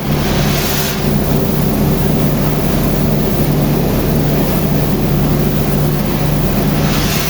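Aimix ABT40D electric concrete pump running steadily while pumping shotcrete: a loud, even machine hum under a wash of hiss, with a brief sharper hiss near the start and again near the end.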